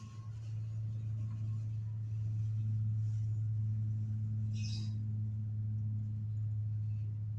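A steady low hum throughout, with one short high-pitched sound about four and a half seconds in.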